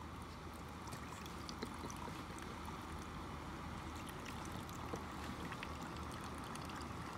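Water pouring in a steady stream from a plastic bottle into a plastic cup, with faint scattered ticks over it.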